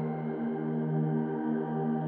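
Ambient background music of held, overlapping tones over a steady low note.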